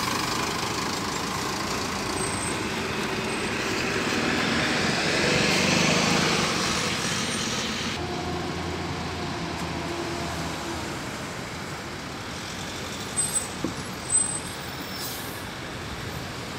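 A minibus engine accelerating as the bus pulls away, growing louder to a peak and then fading. After an abrupt change it gives way to quieter street traffic, with a few sharp knocks about two-thirds of the way through and a short hiss just after.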